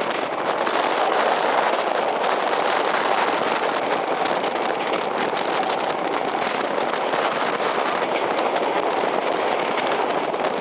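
Passenger train running at speed: a steady rush of wheel and rail noise with frequent small clicks and rattles.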